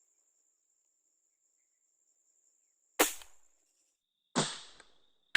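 Two sharp air gun shots about a second and a half apart, each with a short fading tail. Before them there is near silence with a faint steady high whine.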